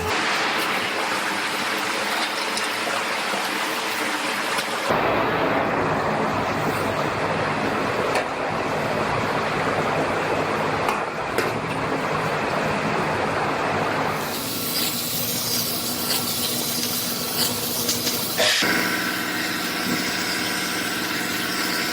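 Power tools running while an aluminum truck bedside is cut off: a loud, continuous hissing, whining tool noise that changes abruptly about five seconds in, again near the middle, and once more a few seconds before the end.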